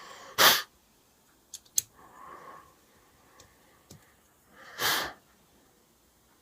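A person sniffing sharply through the nose twice, about half a second in and again near five seconds, with soft breathing between. A few light clicks come from a small toy being handled.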